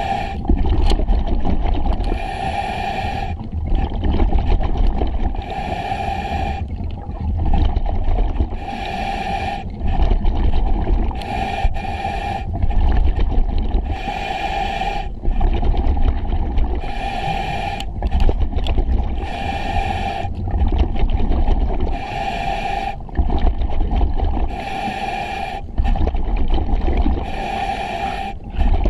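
Diver breathing through an EXO-26 full-face mask on a scuba regulator: a hissing inhale about every three seconds, alternating with the low rumble of exhaled bubbles.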